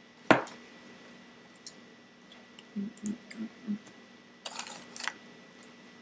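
Table handling sounds while eating: one sharp click about a third of a second in, a few short soft sounds around the middle, and a brief rustle, like sandwich wrapping paper, near five seconds in.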